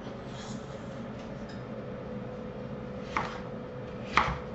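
Kitchen knife chopping a raw potato into cubes on a wooden cutting board: two sharp knife strikes on the board about a second apart, after the first few seconds, over a faint steady hum.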